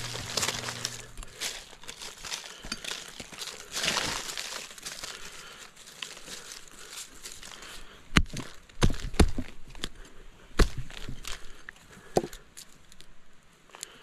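Dry fallen leaves and leaf litter crinkling and rustling as the ground is dug out around wild ginseng plants, then several sharp knocks in the second half.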